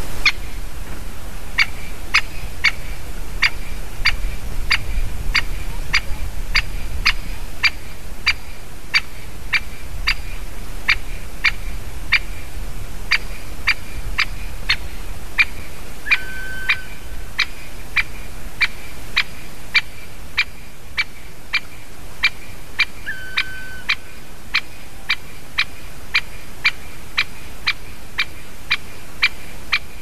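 Great spotted woodpecker giving its sharp single 'kik' call over and over, about twice a second.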